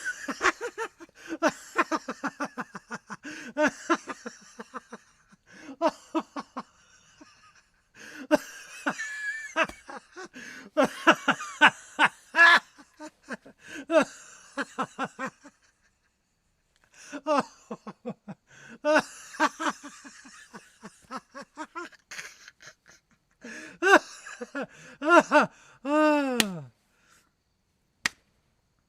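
A person laughing hard in rapid pulses, in several bouts broken by short pauses, ending in one long cry that slides down in pitch. A single sharp click follows near the end.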